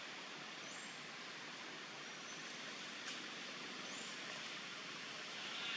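Steady hiss of forest ambience, with three faint short high chirps spaced about a second and a half apart and a single click about three seconds in.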